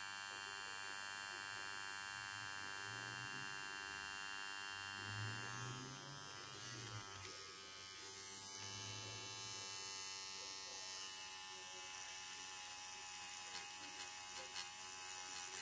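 Tattoo machine running with a needle cartridge fitted, a steady electric buzz that dips slightly in pitch about six seconds in.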